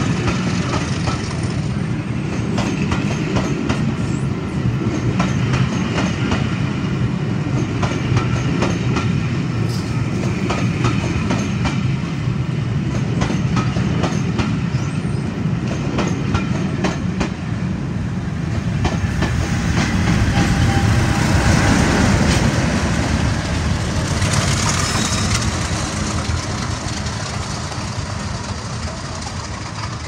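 A train of loco-hauled passenger coaches rolling past, its wheels clicking rapidly over the rail joints above a steady low rumble. The sound swells a little over halfway through, then fades toward the end.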